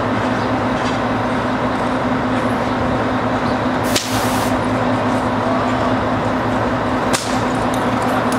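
Steady low engine hum of street traffic, broken by two sharp cracks, about four and seven seconds in.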